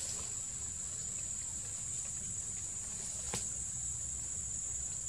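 Steady high-pitched chorus of forest insects, a continuous shrill drone, over a low rumble. A single sharp click a little over three seconds in.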